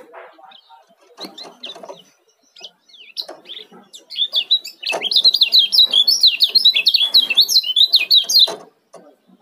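Male kecial kuning (a Lombok white-eye) in a cage, with a few short chirps and soft knocks at first. About four seconds in it breaks into a fast, tightly packed run of high chirps, the 'ciak' song at 'speed rapat', which lasts about four and a half seconds and stops suddenly.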